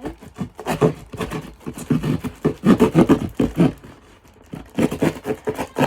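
A knife sawing and slicing through a cardboard box and its packing tape: rapid, irregular scraping and tearing strokes, with a short lull a little after halfway.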